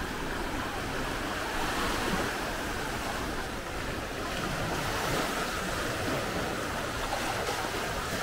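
Small Baltic Sea waves washing steadily onto a sandy beach around wooden pier pilings.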